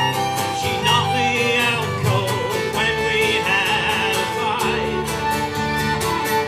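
Live acoustic country band playing between sung lines: a fiddle plays sliding fills over a steadily strummed guitar accompaniment.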